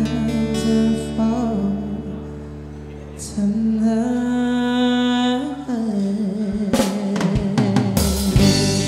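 Live band playing a slow ballad, with a saxophone carrying the melody in long, gliding held notes over the chords. About seven seconds in, a drum fill with cymbal and snare hits leads back in, and the singer's voice enters near the end.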